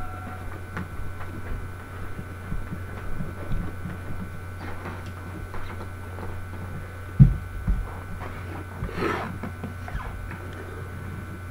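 Steady low electrical hum with faint scattered knocks, a single louder thump about seven seconds in, and a short rustle of movement about nine seconds in.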